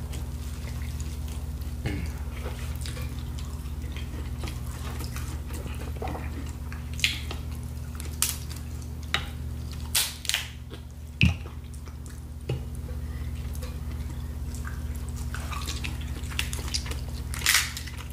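Mukbang eating sounds of a seafood boil eaten by hand: a dozen or so short sharp smacks and clicks from chewing and from peeling shrimp, scattered over a steady low hum.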